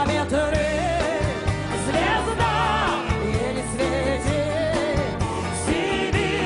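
Live song performance: a woman singing with vibrato over a band with accordion, acoustic guitar, bass and a steady beat.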